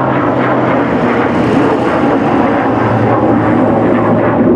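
P-51 Mustang's Merlin V12 engine and propeller giving a steady, loud drone as the fighter flies overhead.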